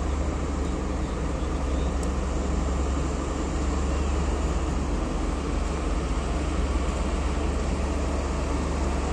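Heavy diesel engines idling: a steady low rumble with an even hiss of noise over it.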